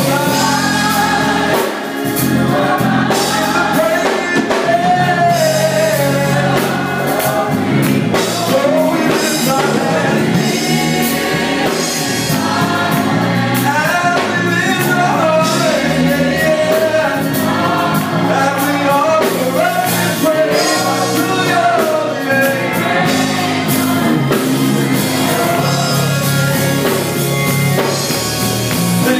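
A gospel choir singing with instrumental accompaniment.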